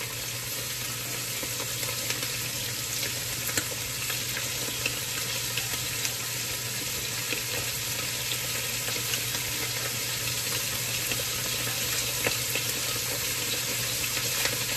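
Stir-fry of meat, egg and carrots frying in a nonstick wok, a steady sizzle with scattered light ticks.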